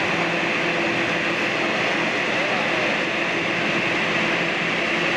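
Steady drone of the ventilation blowers that keep an air-supported sports dome inflated, an even rushing noise with a low steady hum under it.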